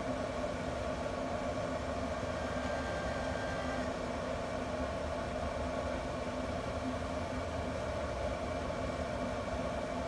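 Steady hum of a pellet grill's combustion fan running, with a low rumble underneath.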